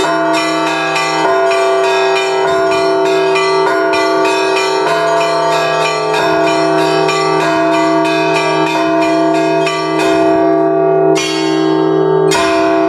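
Russian Orthodox church bells rung by hand in the zvon style: quick patterned strikes of small bells over the steady hum of larger bells. Near the end two heavier strokes ring out.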